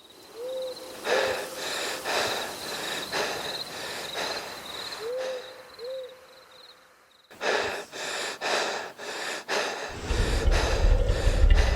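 An owl hooting in two pairs over a steady, warbling high insect trill, with a run of loud noisy strokes at about two a second. The sound drops out briefly about seven seconds in, and a deep rumble comes in near the end.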